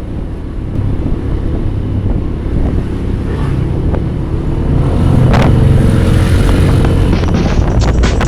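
Motor vehicle engine and road noise on a moving ride through traffic, a steady low rumble with wind on the microphone, growing louder about five seconds in.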